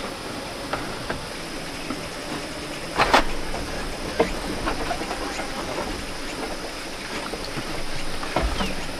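Black pigs shifting about in a bamboo-slatted pen: scattered light knocks over a steady hiss, with a brief louder rush of noise about three seconds in.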